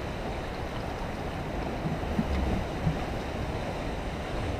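Steady wash of sea surf on a rocky shore, with a few faint low knocks about two seconds in.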